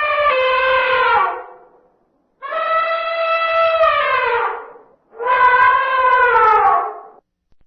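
African elephant bull trumpeting: three long, loud calls separated by short gaps, the first already under way and ending about a second in. Each call holds a steady pitch, then drops in pitch as it ends.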